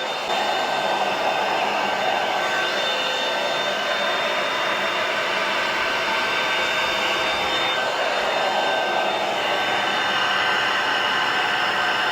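Hair dryer blowing steadily: a constant rush of air with a faint high whine running through it.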